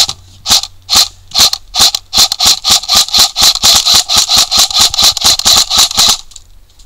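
D-Boys M4 airsoft electric rifle firing single shots at a paper target, each a sharp snap. About two shots a second at first, speeding up to roughly five a second, then stopping about six seconds in.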